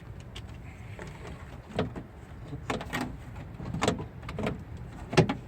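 Irregular clicks and knocks of tools and parts being worked inside a car door as its bolts are undone, a handful of sharper knocks spread through it, over a steady low hum.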